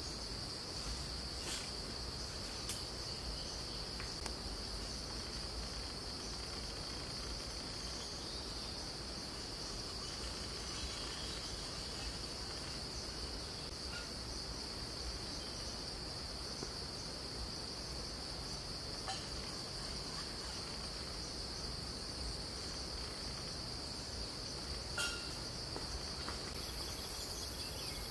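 Insects chirring in one steady, unbroken high drone, with a few faint ticks.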